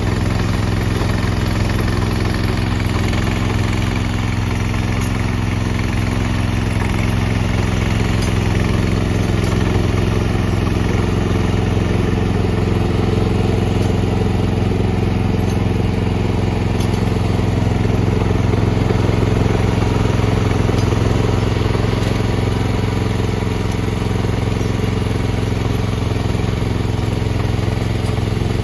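Engine of a tracked walk-behind snowblower running steadily while it clears deep snow, an even hum at one constant pitch.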